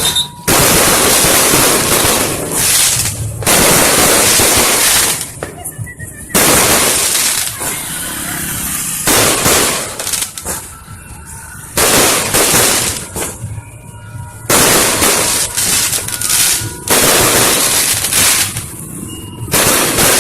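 Fireworks going off in dense, loud volleys of bangs and crackle, each lasting one to three seconds, with short lulls between them.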